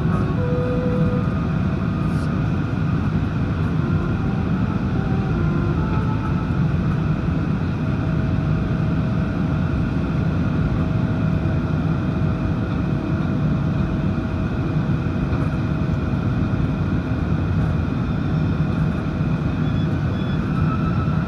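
Airbus A380 aircraft noise: a steady low rumble with faint, constant whining tones above it, unchanging throughout.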